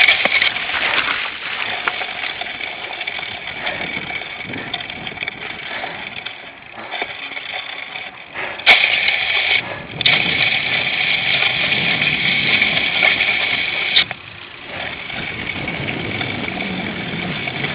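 Rushing wind and the rattle of a cyclocross bike ridden over rough ground, picked up by a camera mounted on the handlebars. About nine seconds in the hiss gets louder, and it drops back abruptly around fourteen seconds.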